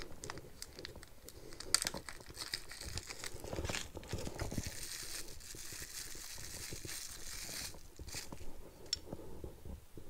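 Crinkling and rustling of a plastic or paper wrapper, with scattered small clicks, as hands work on a motorcycle turn signal and its wiring.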